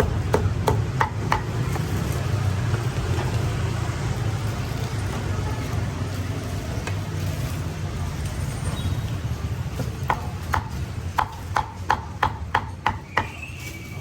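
Meat cleaver chopping roast pork: a few sharp chops at the start, a pause of several seconds under a steady low hum, then a run of chops about three a second from about ten seconds in.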